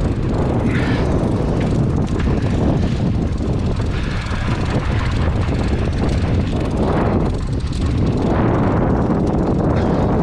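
A small boat's outboard motor running steadily, with wind and the churning wake behind the stern.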